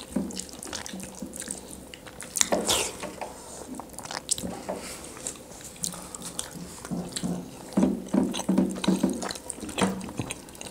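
Close-miked wet chewing, lip-smacking and mouth clicks from several people eating chicken liver and gizzard curry with their hands. The smacks come in quick irregular runs, heavier about a quarter of the way in and again near the end.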